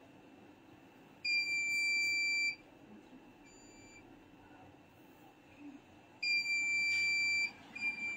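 Electronic beeping: two long, high, steady beeps of over a second each, about five seconds apart, each followed by a shorter, fainter beep.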